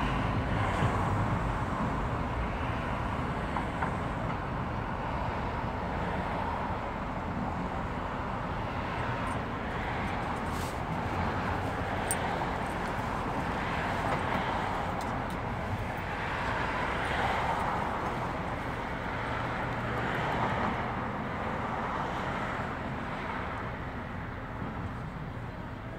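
City street traffic: cars passing through an intersection, a steady rush with several vehicles swelling past one after another, easing off near the end.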